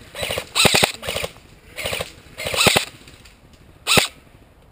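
Airsoft rifle firing short bursts of rapid full-auto shots: three or four quick bursts, then a single short burst about four seconds in.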